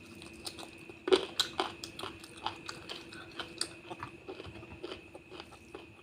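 Close-miked chewing and biting of curry and rice, with a run of sharp wet mouth clicks and smacks, the loudest bite about a second in. A faint steady hum runs underneath.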